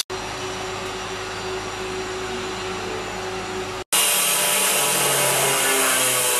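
Handheld angle grinder running against the edge of a sintered stone slab with a steady whine. After a brief dropout about four seconds in, it grinds louder, with its whine shifting in pitch.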